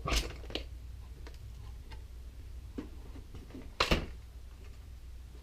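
A few sharp clicks and knocks from handling the plastic RC snowcat models, the loudest about four seconds in, over a low steady hum.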